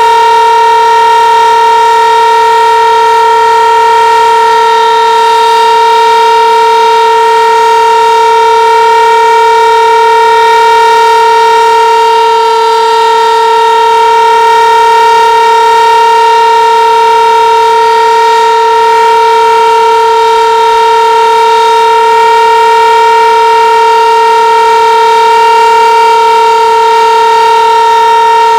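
Sentry 15V2T-B dual-tone, DC-powered tornado siren sounding its steady alert signal, loud and holding one unchanging pitch.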